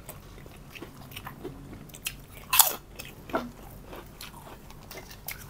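Close-miked sounds of people eating at a table: chewing and crunchy bites with scattered short clicks, the loudest crunch about two and a half seconds in.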